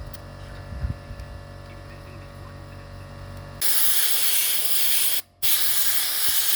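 A low steady hum, then an air compressor blow gun hissing in two loud blasts, broken by a short pause, blowing debris out of a typewriter's mechanism.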